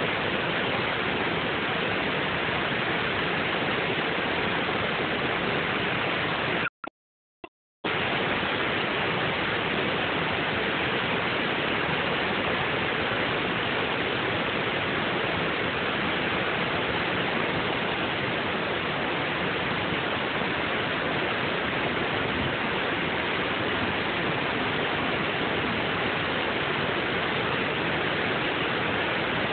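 Steady rushing of river water spilling over a low-head dam on the Chattahoochee River and churning in the rapids below. The sound briefly cuts out for about a second around seven seconds in.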